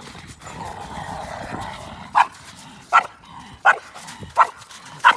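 A dog barking in play, five short barks about three quarters of a second apart in the second half.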